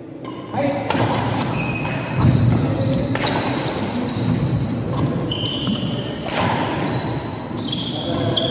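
Badminton doubles rally on a wooden indoor court: sharp racket strikes on the shuttlecock, several short high shoe squeaks and footfalls, with a crowd murmuring in an echoing hall.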